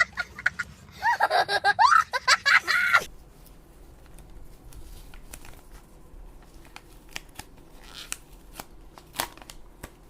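Paper packet being cut and torn open: scattered sharp snips, clicks and crinkling paper. In the first three seconds a loud, pitched, wavering calling sound rises over it.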